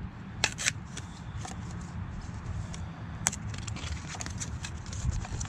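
A few sharp clicks and light handling rattles, the clearest pair about half a second in and another a little after three seconds, over a steady low hum.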